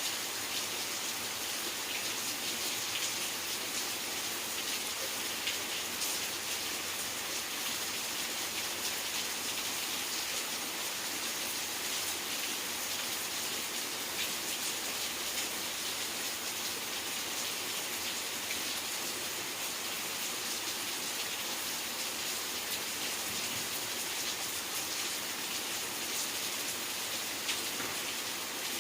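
Steady rain falling, with many small drops ticking on surfaces over an even hiss.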